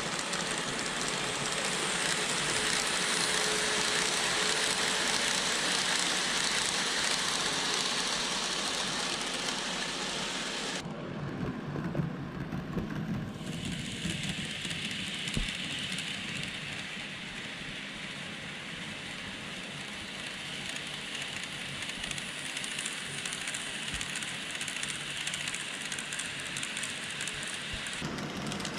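KATO N-gauge 117 series model train running on layout track: a steady hiss of wheels on rail mixed with motor noise. The sound changes abruptly about a third of the way in, turning to a lower rumble for a couple of seconds, and changes again just before the end.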